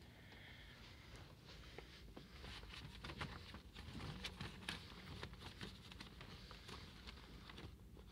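Faint rustling and many small scattered clicks, as of large paper art folders being shuffled and handled in a rack, busiest through the middle of the stretch.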